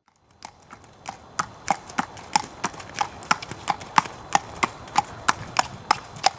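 Hooves of two horses walking on a wet paved road: a steady clip-clop of sharp hoof strikes, about three a second, starting about half a second in.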